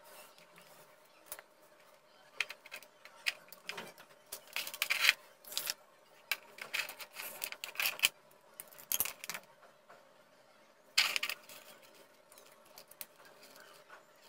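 Hands handling wires, circuit boards and a small mains transformer on a wooden tabletop: irregular clicks, taps and rustles coming in clusters, with short quiet gaps between.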